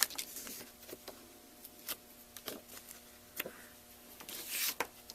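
Scattered light taps and clicks, with a brief soft paper rustle near the end, from hands handling a stamped cardstock panel backed with foam adhesive.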